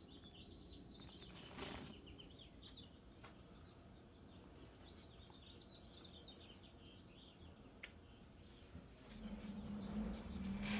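Faint twittering of small birds in the background, with a couple of sharp clicks. Near the end a low steady hum comes in and grows louder.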